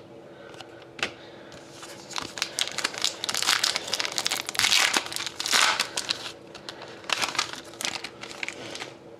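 Plastic trading-card pack wrapper being crinkled and torn open by hand, a dense crackle that builds about two seconds in and is loudest around the middle.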